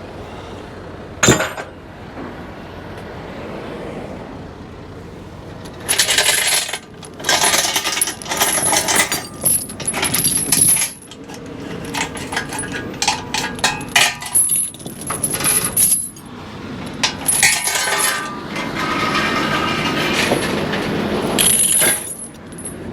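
Metal tie-down chain rattling and clinking in repeated irregular bursts as it is handled and pulled loose, after a single sharp metallic click about a second in.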